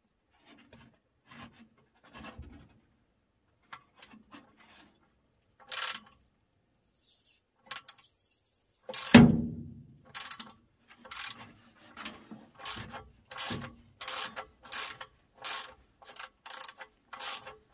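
Hand ratchet with an extension backing out a torch-heated rusty exhaust bolt. A few scattered clicks come first, then one loud metal clank about nine seconds in, then a steady run of ratchet clicks about one and a half a second as the bolt, now broken free, is turned out.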